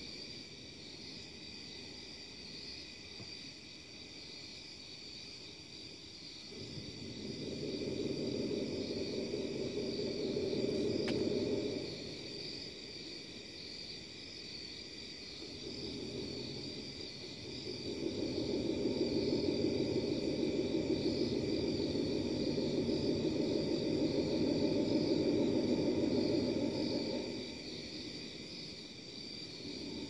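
Unexplained low, wavering drone heard above a house, swelling up twice: a shorter rise, then a longer, louder one in the second half. A steady high-pitched chirring continues underneath.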